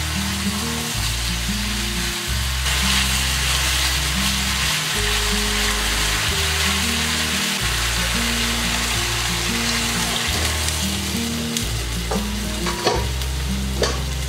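Seasoned meat sizzling in a hot enamelled cast-iron braiser over a gas flame while it is stirred, with a steady hiss. A few sharp clinks of utensils on cookware come near the end.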